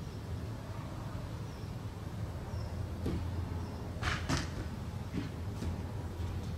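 A few sharp knocks and thuds over a steady low rumble. The two loudest come close together about four seconds in.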